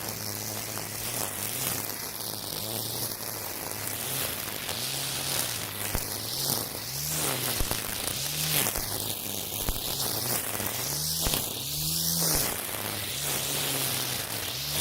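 Makita 40V cordless string trimmer spinning Oregon Flexiblade nylon cord through tall weeds: a steady motor hum whose pitch dips and recovers again and again as the line bites into thick growth.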